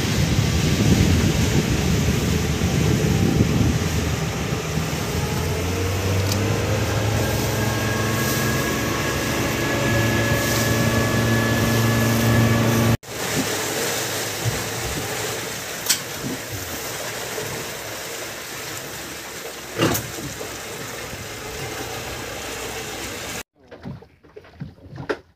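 Fishing boat under way: its engine running steadily, rising in pitch as the boat speeds up, over the rush of water and wind. About halfway the engine tone cuts off suddenly, leaving a rushing wash of wind and water with a couple of sharp knocks, and near the end it drops to a much quieter stretch.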